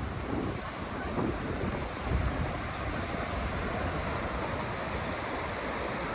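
Ocean surf washing steadily on a sandy beach, with wind buffeting the microphone.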